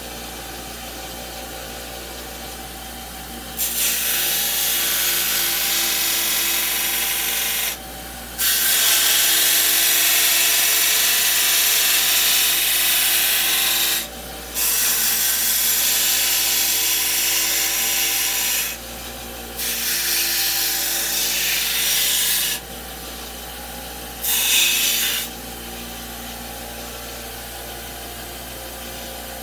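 Power sanding tool grinding down the edges of a Kydex holster to round them off. It cuts in five runs of a few seconds each, the last one short, over a steady hum.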